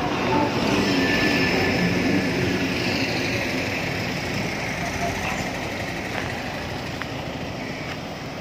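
A convoy of cars and SUVs driving past one after another, a steady rush of engines and tyres that is loudest in the first few seconds and eases slightly after.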